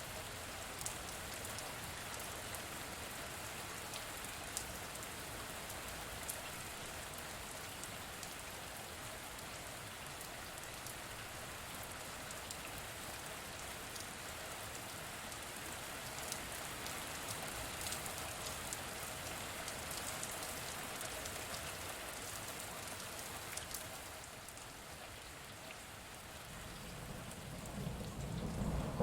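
Steady rain falling, with scattered sharp drop taps over the hiss. It eases slightly about two-thirds of the way through, and a low thunder rumble begins to build near the end.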